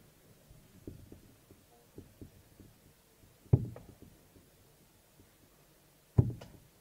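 Two steel-tip darts thudding into a bristle dartboard, one about three and a half seconds in and the second about two and a half seconds later, each a sharp low thud. A few fainter knocks come in the first couple of seconds.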